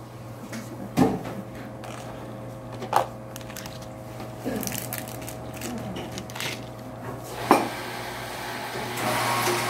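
Espresso-bar handling sounds: three sharp clinks of metal pitchers and cups being set down on the counter, about a second in, about three seconds in and near the end, with softer handling between, over a steady low machine hum. A rushing noise swells just before the end.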